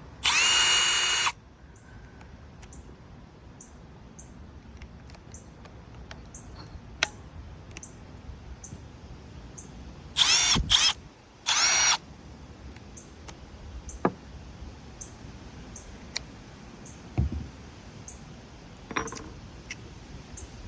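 Cordless impact driver's motor whining in short trigger pulls: one about a second long at the start, then two shorter ones about halfway through, with light clicks and knocks in between.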